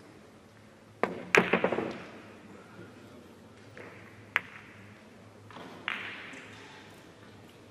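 A carom billiards shot: a cue tip strikes the ball about a second in, followed at once by a loud cluster of clicks, then two more single sharp clicks of balls knocking together, a few seconds apart.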